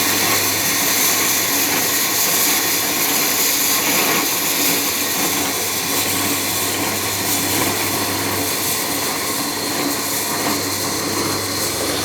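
Engine-driven wood-sawing machine running steadily, a constant loud noise with a low hum underneath.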